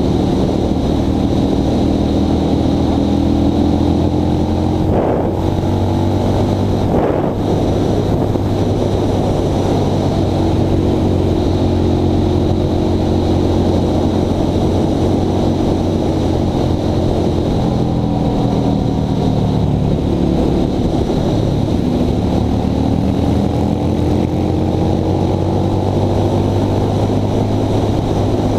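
Honda Shadow V-twin motorcycle engine running under way, heard from the rider's seat. Its note holds fairly steady, falls away about twenty seconds in, then climbs again as the bike speeds up.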